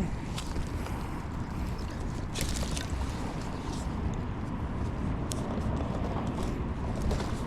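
Steady wind rumble on the microphone, with a few brief scrapes and rustles, the clearest about two and a half and five seconds in.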